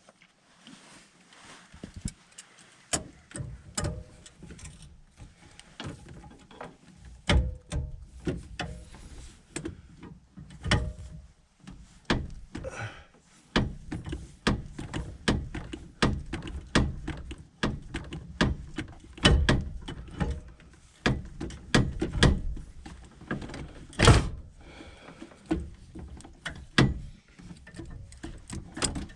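Wrenches knocking and clanking irregularly against a furnace's gas piping while working a stubborn fitting loose, with a few heavier knocks in the second half.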